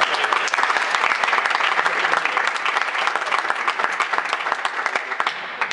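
Spectators applauding with many rapid hand claps, dying away near the end.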